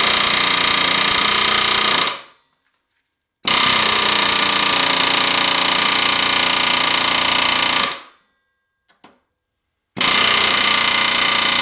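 Pneumatic air hammer running in three bursts, hammering through a socket on a stuck part of a small engine: a short burst, a longer one of about four seconds, then another short one.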